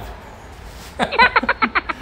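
A man laughing: a quick run of short chuckles starting about a second in.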